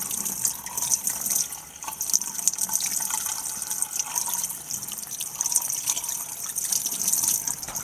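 Tap water running over flathead catfish fillets in a sink, splashing steadily as hands rub and rinse them.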